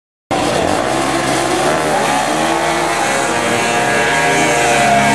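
Several racing quad (ATV) engines running hard together, their overlapping pitches gliding up and down as the riders rev and shift.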